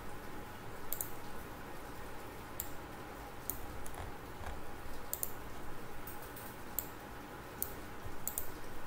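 Computer mouse clicking: several short sharp clicks about a second apart, some in quick pairs, over a faint steady background hum.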